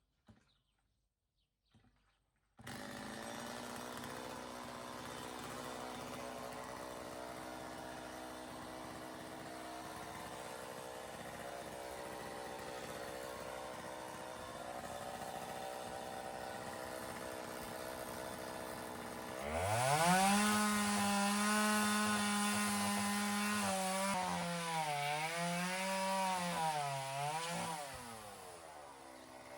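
Chainsaw starting up about two and a half seconds in and running steadily. About twenty seconds in it revs up, louder and higher, and its pitch dips and recovers several times as the chain bites into the wood of a dead tree, then eases off near the end.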